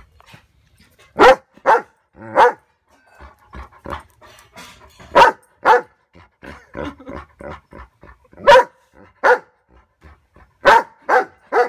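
Small dog barking at a spinning hula hoop: about ten sharp barks, mostly in quick pairs, with softer worried yips and whimpers between them.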